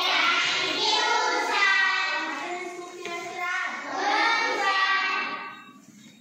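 A group of children singing together in unison, the song fading out to an end about five and a half seconds in.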